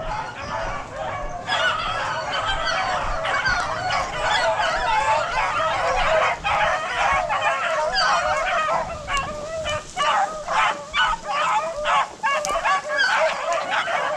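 A pack of beagles baying together, many hound voices overlapping in a continuous chorus, swelling about a second and a half in: the pack in full cry running a rabbit.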